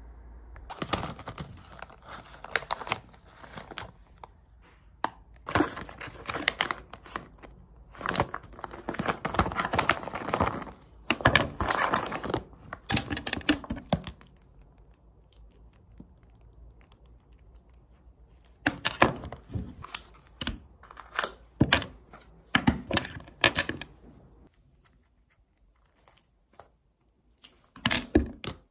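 A plastic zip pouch rustling and crinkling as small items are handled, with light clicks and knocks of objects set down on a table. It comes in several bursts with quieter pauses between.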